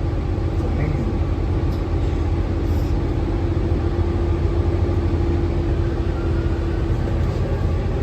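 Steady low rumble of a New Flyer XN60 articulated bus heard from inside, with a steady hum over it.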